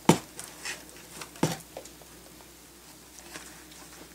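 A box being handled: two sharp knocks about a second and a half apart, with lighter taps and rustling between.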